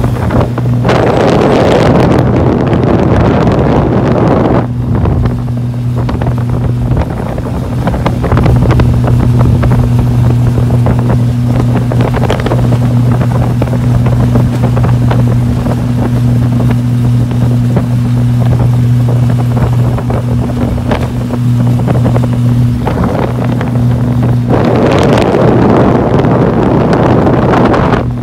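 Speedboat's inboard engine running at a steady speed underway, a constant drone that holds its pitch. Rushing wind on the microphone swells over it for a few seconds near the start and again near the end.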